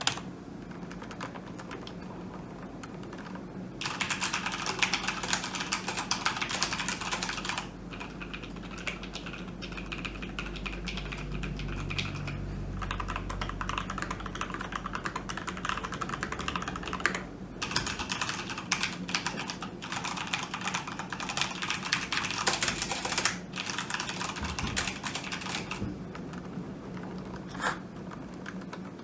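Typing on a computer keyboard: fast runs of key clicks in bursts a few seconds long with brief pauses. A steady low background hum runs underneath.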